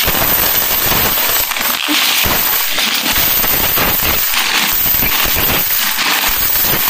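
Coins clinking as they are shaken out of a plastic coin bank through a small cut hole and drop onto a cardboard box heaped with Philippine peso coins: a dense, unbroken run of metallic clicks.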